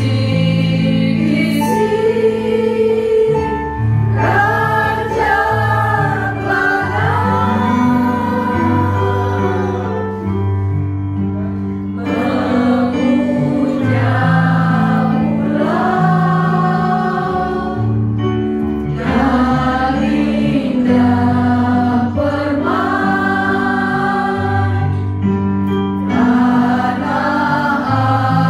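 Mixed choir of women and men singing together into microphones, with a backing track's steady low bass notes changing every second or two underneath.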